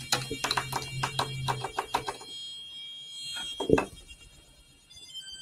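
A BBC micro:bit V2 board being shaken by hand, its cable rattling in a quick run of clicks for about the first two seconds, while its built-in speaker gives electronic demo tones.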